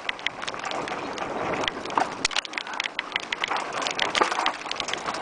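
Mountain bike riding fast down a rough dirt singletrack: tyres crunching over dirt and stones, with a constant clatter of many sharp knocks and rattles as the bike and camera are shaken over the bumps.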